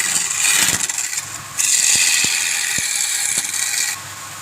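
Turning tool cutting wood spinning on a lathe: a steady, high hissing scrape in passes, with a short break about a second in and another near the end, and a few light ticks.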